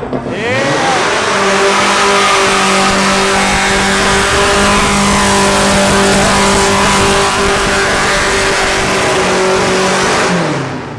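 A car doing a burnout. The engine revs up in the first second and is held at high revs for about nine seconds over a loud hiss of spinning, squealing tyres, then the revs drop near the end.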